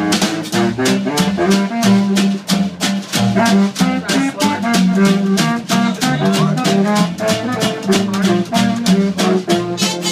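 Small jazz band playing live: an upright bass walking line and a snare drum keeping a steady beat under a horn-like lead melody.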